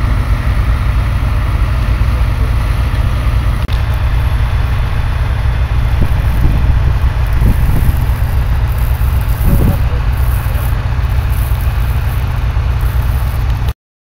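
Farm tractors running while ploughing, heard under a heavy, flickering low rumble. There is a brief break about a third of the way in, and the sound cuts off suddenly at the very end.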